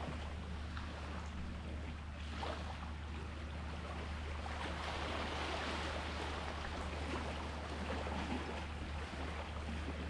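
Sea waves washing steadily on the shore, a continuous hiss of surf that swells slightly about halfway through, over a steady low hum.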